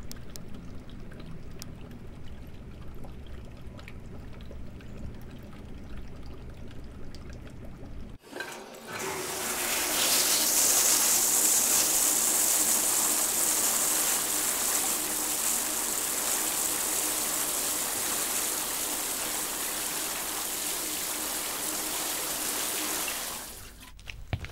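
A quiet low hum, then, about a third of the way in, a shower head starts spraying: a loud, even hiss of water that swells in over about a second, runs steadily, and stops shortly before the end.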